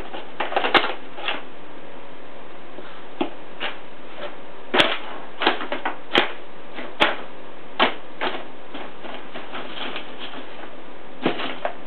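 Brown paper bag crinkling and crackling as a cat paws at it and noses inside, in quick irregular crackles with a few sharp snaps.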